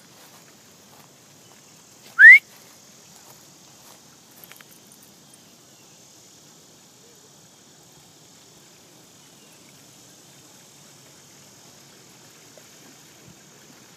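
One short, loud whistle rising in pitch, about two seconds in, from a person whistling. Otherwise only faint outdoor background with a steady high hiss.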